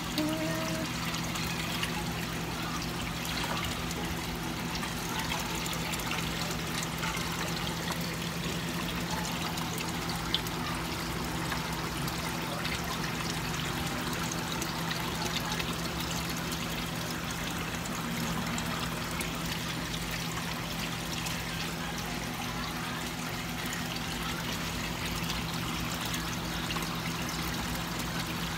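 Aquarium water steadily trickling and pouring as it circulates through the tank, over a low steady hum.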